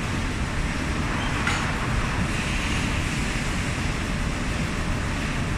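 Powered roller conveyor running steadily as a loaded pallet of corrugated board rolls along it, a continuous low mechanical rumble. A brief click about a second and a half in.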